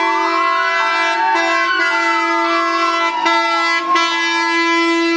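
Fire engines' horns held in a loud, steady chord while a siren wails, slowly rising and then falling in pitch.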